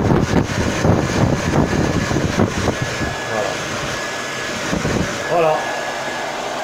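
Hand-held hair dryer running steadily, blowing hot air onto a battery's heat-shrink wrap to shrink it tight. Its airflow gusts against the microphone for the first two seconds or so, and a faint steady whine joins in from about three seconds in.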